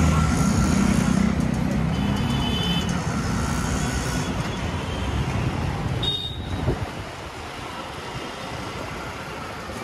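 Road traffic: vehicle engines running close by, loudest in the first four seconds, then easing to a steadier traffic hum. A short high horn beep sounds about two seconds in.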